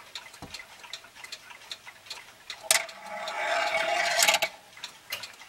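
Mattel Rolling Ball Clock running on its mains synchronous motor: light, regular clicking from the mechanism, about three a second, with a louder whirring rattle lasting about a second and a half midway.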